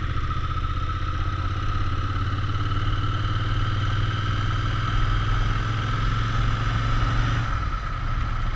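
Royal Enfield Interceptor 650's parallel-twin engine idling steadily, its low note easing slightly near the end.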